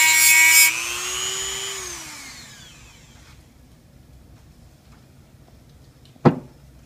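Dremel rotary tool with a cutting wheel grinding a notch into a motor shaft, a steady high screech. Less than a second in the cutting stops, the tool's whine rises briefly and then winds down over about two seconds as it spins to a stop. Near the end, a single sharp knock.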